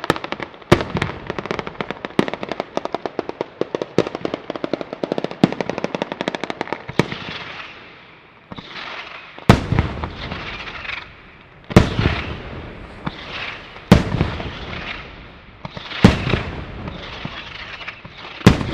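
Sanseverese-style ground fireworks battery going off. For the first several seconds it is a dense, rapid string of cracks, like machine-gun fire. After a short lull, loud single bangs follow about every two seconds, with crackling between them.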